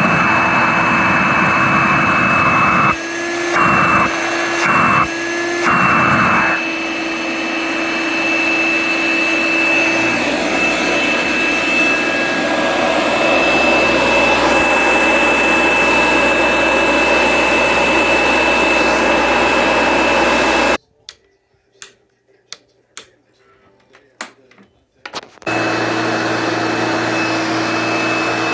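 1964 Hoover Dial-A-Matic 1100 upright vacuum cleaner running, a steady motor noise with a high whine. About three seconds in, its sound dips briefly three times. Later it cuts out abruptly for about four seconds, leaving only a few clicks, and then runs again.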